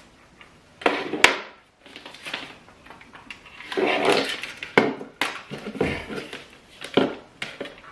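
Handling noises as cables are unplugged from a broadband router: scattered clicks and knocks of plastic plugs and casing, with a stretch of scraping and rustling in the middle.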